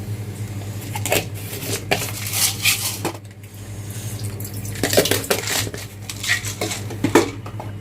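Irregular clinks and taps of kitchen dishes and utensils as whole garam masala spices are handled and set out, over a steady low hum.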